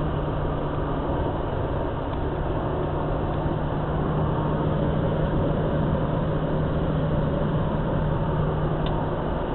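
Steady engine and road noise heard from inside the cabin of a moving car at highway speed, with an even low engine drone under it.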